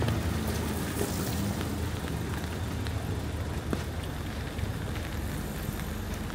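A car engine hums as it passes close on a wet street and fades over the first couple of seconds. A steady hiss of rain and tyres on wet road follows, with a few faint drip ticks.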